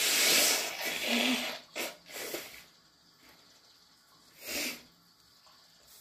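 A person blowing their nose hard: one long noisy blast of about a second and a half, then a few shorter blows, the last about four and a half seconds in.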